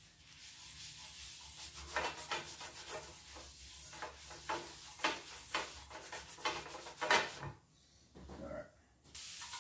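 Paper towel wiped over a Korean barbecue grill pan to oil it, a string of short rubbing strokes for about seven seconds. Near the end a steady hiss starts suddenly.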